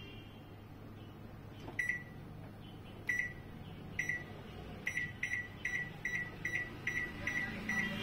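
Microwave oven keypad beeping as its buttons are pressed. There are three single beeps about a second apart, then a quick run of about two or three beeps a second as the cooking time is stepped up. A low steady hum runs underneath.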